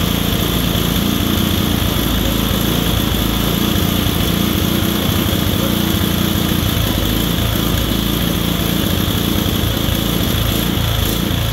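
Small engine of a portable generator running steadily and loudly under electrical load.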